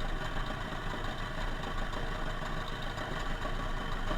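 Small boat engine of a traditional jukung outrigger running steadily.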